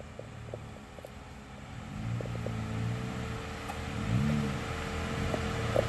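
Off-road vehicle engine revving up and down in short pushes from about two seconds in, as it crawls slowly over a trail obstacle. Scattered clicks and knocks come through beneath it.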